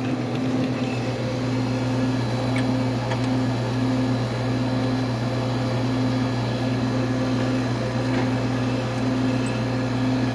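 Air conditioning condensing unit running: a steady low electrical hum from the compressor and fan, with a higher tone in it that pulses on and off at an even rate.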